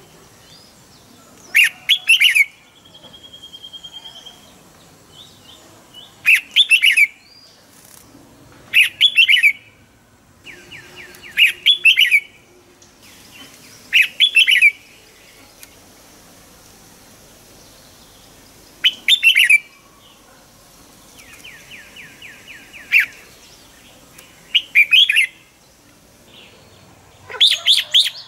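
Red-whiskered bulbul singing short, loud whistled phrases of quick sweeping notes, repeated every few seconds, with softer rapid trills between them.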